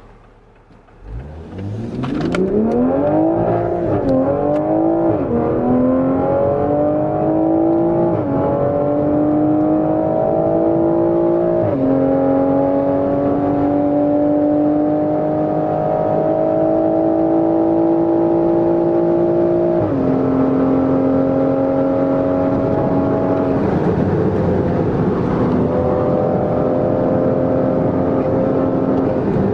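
Car engine accelerating hard from low speed, its note climbing and then dropping at each upshift through several gears. The climbs grow longer in the higher gears.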